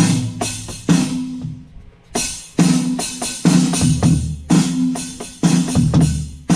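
Drum kit playing a beat, with sharp hits at an even pulse over a low repeating riff played on a second instrument.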